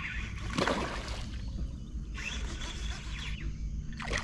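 Water splashing in a few short, irregular bursts, then near the end a peacock bass striking a surface lure with a splash.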